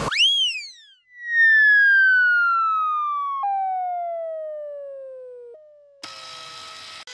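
Cartoon sound effects: a quick whistle swooping up and back down as the truck leaps, then a long falling whistle that slides steadily down in pitch, dropping in two steps, as the truck falls. About six seconds in, a steady noisy hum with a few faint tones begins.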